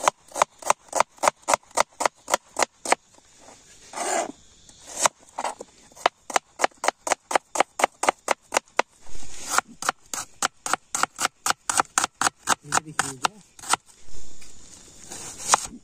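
Kitchen knife chopping food in quick, even strokes, about four a second, in several spells with short pauses between them.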